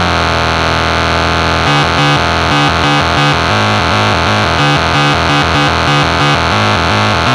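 Stormtrooper two-oscillator joystick noise synthesizer playing a harsh, buzzy tone. It holds one pitch at first, then from about two seconds in breaks into a rapid stuttering pattern that jumps between pitches several times a second.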